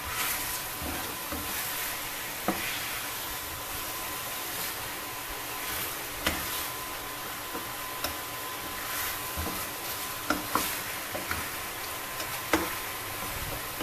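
Raw chicken pieces in curry powder sizzling in a stainless steel pan, seared while being stirred and turned with a spatula. The spatula knocks and scrapes against the pan now and then.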